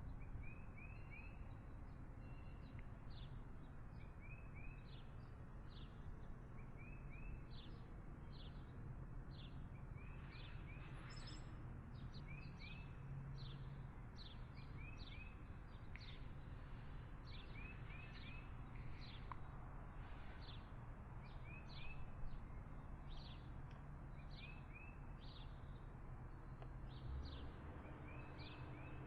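Outdoor ambience: steady traffic noise with birds chirping over it. The birds give short high chirps about once a second and little runs of three quick rising notes every few seconds.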